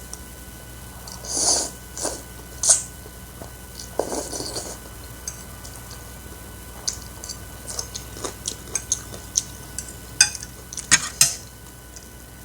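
Close-up eating sounds over a bowl of noodle soup: a utensil clinking against the bowl in a string of sharp clicks, with a few short mouth noises of slurping and chewing.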